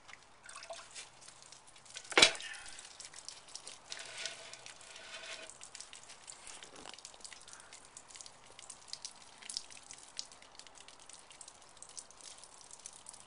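Filtered water dripping and trickling from a gravity-fed water purification bucket as it is lifted off its collection pitcher, with one sharp knock about two seconds in and scattered small clicks of the plastic bucket and pitcher being handled.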